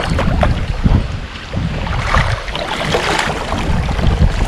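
River water sloshing and splashing around a wader's hands and legs, with wind noise on the microphone; a louder stretch of splashing about two to three seconds in.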